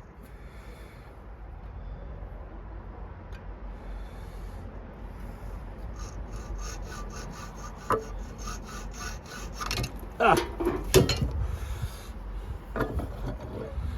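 Hand-worked tool scraping back and forth on a small aluminium sleeve, being cut down to size: light, uneven scraping at first, then steady strokes at about three a second, with a few knocks of the piece being handled about ten seconds in.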